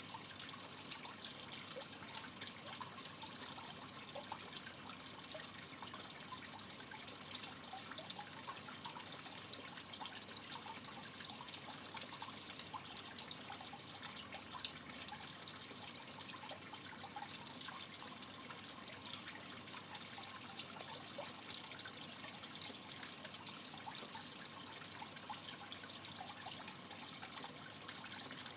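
Steady trickle of aquarium water running into the tank, with many small crackles and pops throughout.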